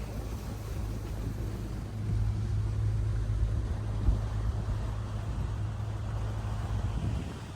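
Steady low drone of an engine running under way, with one short tick about four seconds in.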